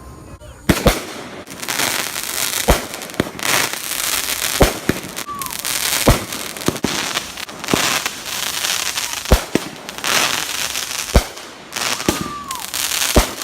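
Fireworks going off in a barrage: about a dozen sharp bangs at irregular intervals, with crackling in between.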